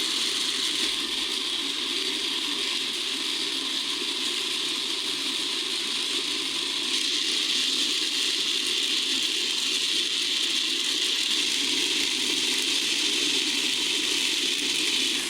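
Star-rolling machine turning, its rotating drum tumbling firework stars in a steady, continuous fine rattle.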